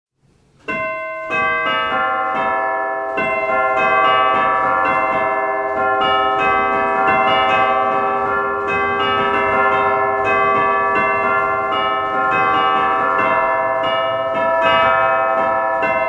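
A peal of church bells: several bells of different pitches struck in quick succession, two or three strikes a second, their tones overlapping and ringing on. It starts about half a second in.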